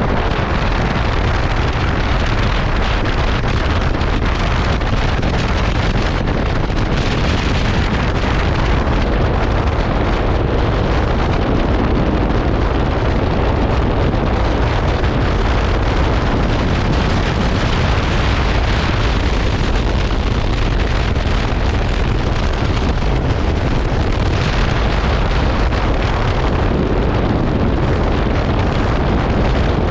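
Strong wind buffeting the microphone of a moving motorcycle, with the KTM 390 Adventure's single-cylinder engine running underneath, steady throughout.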